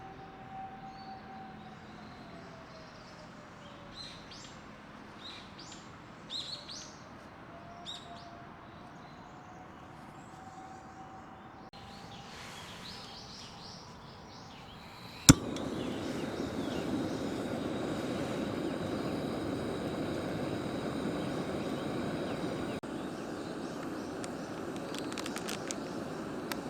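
Outdoor ambience with a few short bird chirps and a faint, distant tone that slides down and back up. About halfway through, a sharp click is followed by a louder, steady rushing noise.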